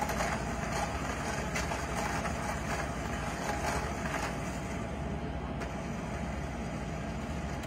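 Electric hand mixer running steadily, its beaters whipping dalgona coffee mixture with cocoa powder in a glass bowl.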